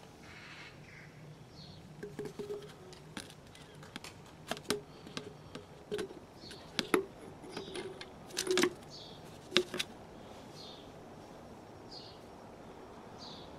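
Shock absorber upper-mount parts being handled and fitted onto the strut's piston rod: a scattered series of light clicks and knocks from the rubber bump stop, dust boot, and metal-and-rubber upper mount, busiest in the middle of the stretch.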